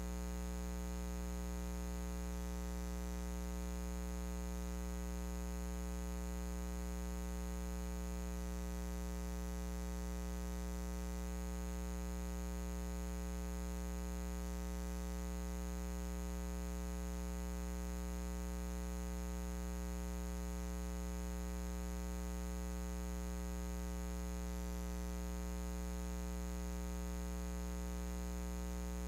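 Steady electrical mains hum: a low, unchanging buzz with a stack of overtones above it, and a faint hiss.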